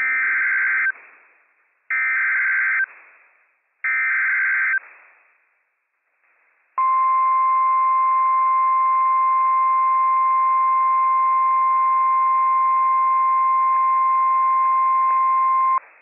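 Emergency Alert System alert on NOAA Weather Radio: three one-second bursts of SAME header data warble, about two seconds apart, announcing a Flash Flood Warning. These are followed by the single steady 1050 Hz Weather Radio warning alarm tone for about nine seconds, which cuts off abruptly.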